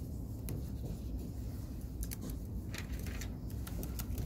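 Steady low room hum with scattered light clicks and scratches, a few of them bunched together about two and three seconds in.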